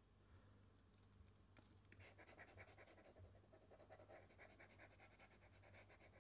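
Near silence, with a few faint clicks and then, from about two seconds in, a faint rapid scratching, typical of desk work on a computer.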